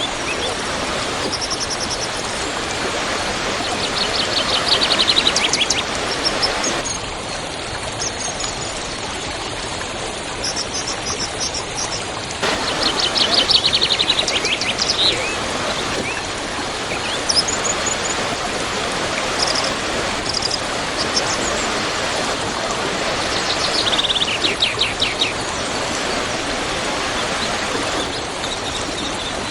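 Waterfall water rushing in a steady roar, with a songbird singing fast, high trills three times over it and a few shorter chirps between.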